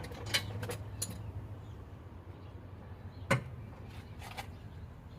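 Scattered metallic clinks and knocks from jacks being worked and taken out from under a car, the loudest about three seconds in.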